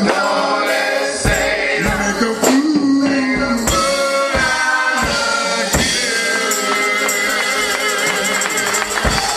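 Live gospel quartet music: electric bass and drums with a tambourine jingling in rhythm, under singers holding long notes.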